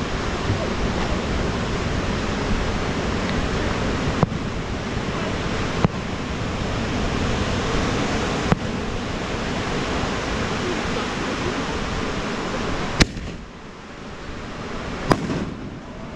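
A steady rush of surf, with sharp firework bangs cutting through: three lighter pops in the first half, then two louder cracks about two seconds apart near the end, as aerial fireworks burst.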